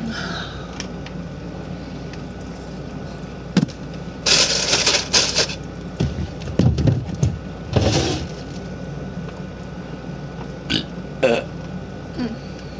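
A young woman burping several times in separate bursts: a long, noisy one a few seconds in, lower ones after it, and a short one near the end.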